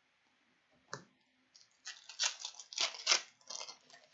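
Foil wrapper of a hockey trading card pack being torn open and crinkled by hand, a click followed by a run of crackly rustles.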